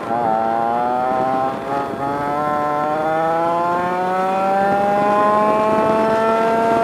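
Historic 100cc two-stroke kart engine heard onboard, accelerating out of a corner: the revs dip briefly at the start, then climb steadily and level off near the end.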